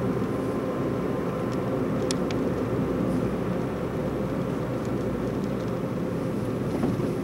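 Steady road and engine noise inside the cabin of a Chevrolet Spark being driven along a street, with a low, even rumble.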